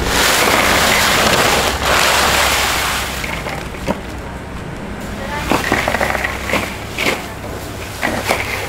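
Crushed ice poured from a sack into a plastic cooler box: a loud rushing pour of about three seconds, then short scraping crunches as the ice is spread out by hand.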